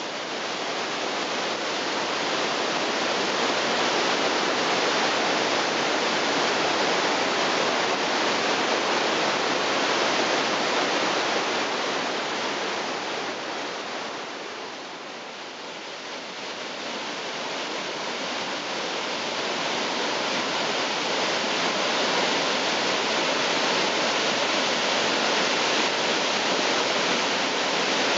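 Niagara's Bridal Veil Falls crashing onto the boulders at its base: a loud, steady rush of falling water that dips briefly about halfway through, then comes back up.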